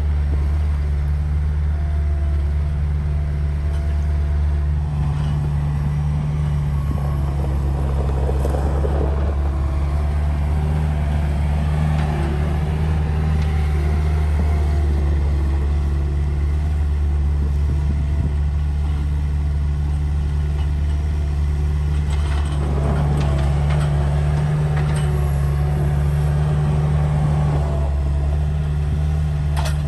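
Bobcat S175 skid-steer loader's diesel engine running steadily at working speed while it carries and stacks round straw bales.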